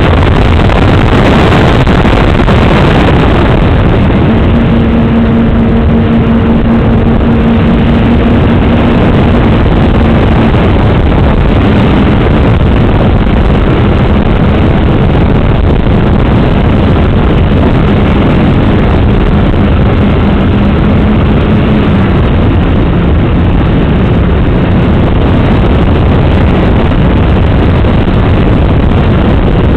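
Model aeroplane's motor and propeller running steadily under heavy wind rush on the onboard camera's microphone. The propeller tone drops in pitch twice, about ten seconds in and again about twenty-two seconds in, as the throttle comes back.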